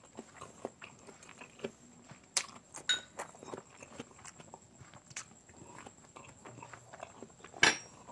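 Close-up eating sounds of quail balut: irregular clicks and taps of eggshell and a metal spoon, with chewing, and a sharp click near the end.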